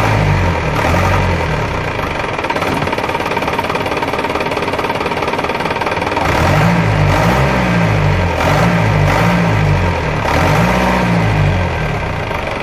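Mahindra Commander jeep's DI diesel engine idling, heard up close in the open engine bay with the fan and belt turning. A low hum that rises and falls about twice a second swells about six seconds in and fades near the end.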